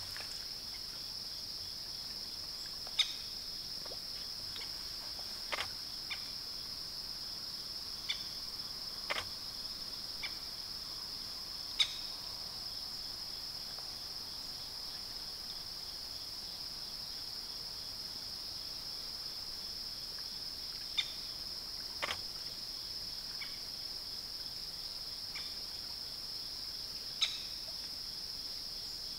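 Insects trilling steadily at one high pitch, with about a dozen short, sharp clicks or chirps scattered through.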